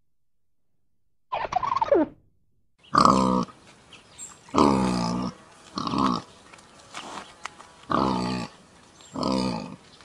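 Wild boar grunting: five drawn-out, pitched grunts, each about half a second long, come roughly every second and a half from about three seconds in. A shorter call falling in pitch comes before them.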